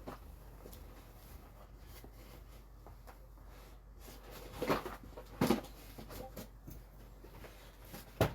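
Quiet room with a few brief handling noises: two short rustles or knocks a little past the middle and a sharp click near the end, over a faint steady hum.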